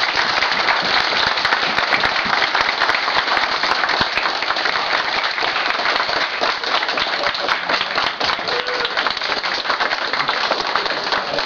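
Audience applauding: a long, steady round of dense clapping from a large room full of people.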